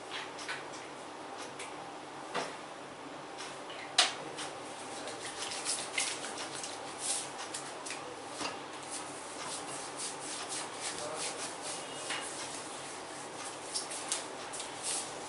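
Hands massaging bare skin: rubbing with many short, sharp taps and slaps, the sharpest about four seconds in.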